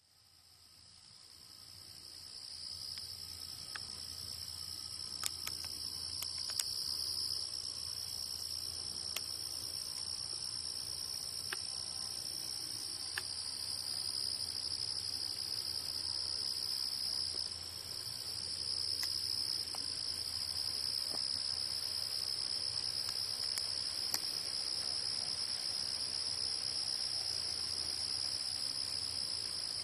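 A steady, high-pitched chorus of singing insects, fading in over the first couple of seconds.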